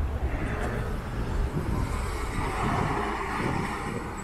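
Road traffic: a low rumble with a vehicle passing, its noise swelling and fading around two to three seconds in.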